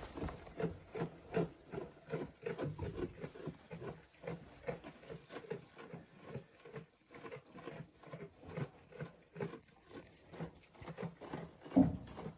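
Goats moving about in a pen, with a continuous patter of small irregular rustles, taps and snuffling sounds, and one louder short low animal call near the end.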